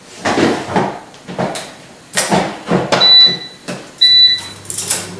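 Kitchen handling noises, cookware and utensils clattering as food is turned over, then two electronic beeps from a cooking appliance being set, after which a low steady appliance hum starts.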